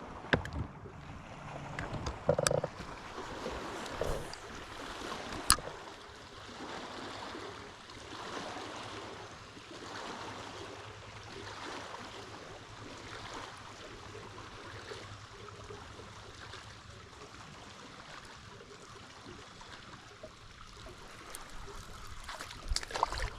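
A few sharp clicks and knocks in a small fishing boat in the first six seconds, then a steady soft outdoor wash of noise over calm water.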